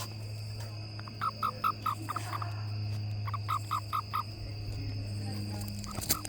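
Toad giving short pulsed chirping notes, about five a second, in two runs of about six and a brief run near the end. A steady low hum runs underneath.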